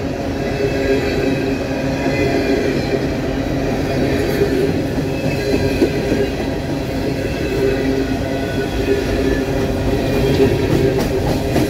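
Empty open-top coal cars of a CSX freight train rolling past: a steady rumble of steel wheels on rail, with a continuous squealing whine over it.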